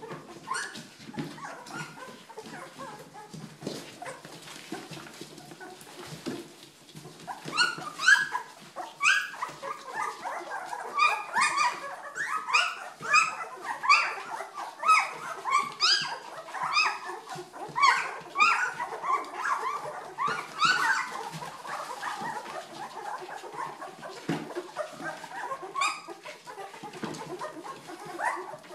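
Two-week-old Old English Sheepdog puppies whimpering and squealing in short, high, rising cries. The cries are softer at first and come thick and loud from about seven seconds in.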